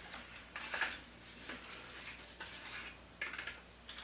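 Sticky homemade glue slime being mixed and worked in a bowl: soft wet squelches and light scrapes coming irregularly, about once a second.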